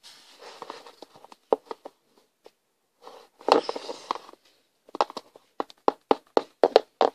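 Handling noise of plastic pony toys and the camera: light knocks and taps with some soft rustling, turning into a quick run of taps in the last two seconds.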